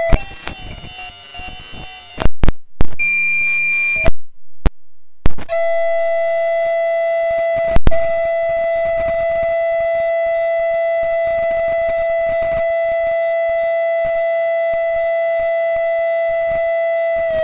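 Audio feedback: a loud steady tone with several fainter tones above it over a hiss. It cuts in and out abruptly a few times in the first five seconds, with a second or so of silence, then holds steady, broken once by a sharp click about eight seconds in.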